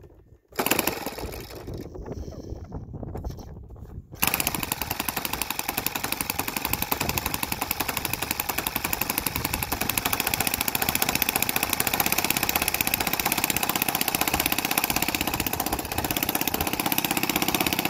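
Electric starter spinning a YS-115 Warbird Special four-stroke nitro glow engine in a few short spins, then the engine catches about four seconds in and runs steadily at low throttle with a loud, fast, even pulsing beat.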